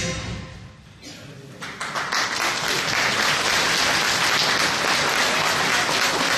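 Music ends at the start, and after about a second and a half of near quiet an audience breaks into applause, many people clapping steadily.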